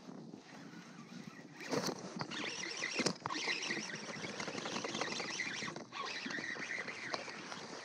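Baitcasting reel cranked steadily, a grainy rattling whir that starts a couple of seconds in, as a hooked bass is reeled in to the kayak; a sharp knock about three seconds in.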